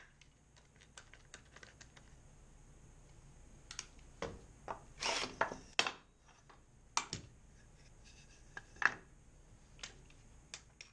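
Scattered clicks and knocks of a cordless drill, a drill bit and a wooden piece being handled and set down on a metal bench top, with a short rasping burst about five seconds in.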